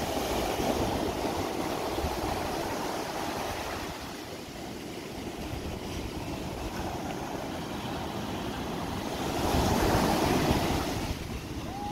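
Small ocean waves breaking and washing up a sandy shore in a steady rush of surf, with one louder wave crashing near the end.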